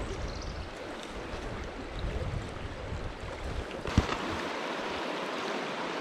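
River water rushing over a shallow stony bed, a steady hiss. There is low rumbling on the microphone for the first few seconds, and a single sharp knock about four seconds in, after which the water hiss is steadier and brighter.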